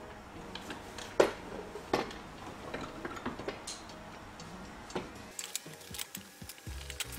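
Irregular sharp metallic clicks and clinks of hand tools and engine parts being handled during reassembly of a Jaguar E-type's engine. The loudest click comes about a second in, and the small clicks come closer together near the end.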